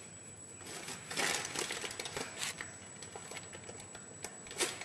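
Scattered light clicks and short scraping sounds. A cluster comes about a second in, and a sharper click comes near the end.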